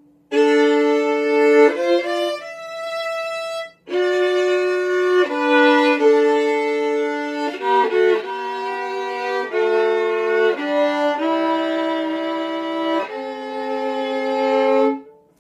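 Solo violin playing a TV commercial's background tune: a melody of sustained bowed notes. There is a brief break about four seconds in, and the last note stops just before the end.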